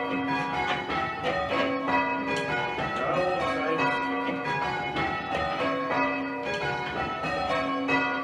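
A very light ring of six church bells, the tenor only about 4½ cwt, being rung in changes: a steady, unbroken stream of overlapping bell strikes.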